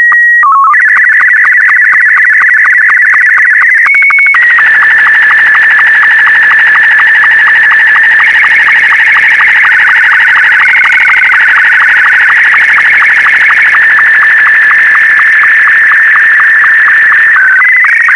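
Wraase SC2-60 slow-scan television (SSTV) signal: it opens with a steady calibration tone and a short lower tone, then turns into a continuous chattering, warbling tone as the image is scanned line by line, with rapid regular sync ticks. A brief higher steady tone comes about four seconds in.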